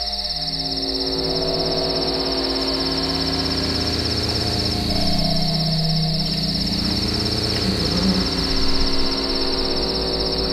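Steady high cricket chirring over a slow, eerie drone of low held tones that shift in pitch.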